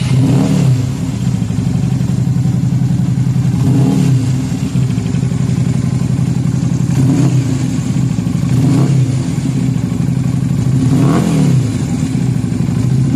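Yamaha Drag Star 250's air-cooled V-twin running through an aftermarket muffler, idling steadily and blipped on the throttle several times, each rev rising and falling back within about a second.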